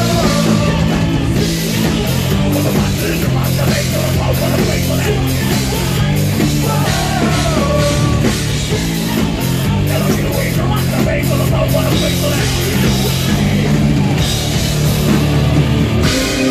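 Metal band playing live and loud: distorted electric guitar, bass guitar, drum kit and synthesizer together in a dense, driving mix.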